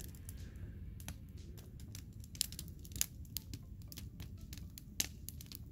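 Campfire of dry deadwood crackling, with irregular sharp pops and snaps, a few louder ones about two and a half, three and five seconds in.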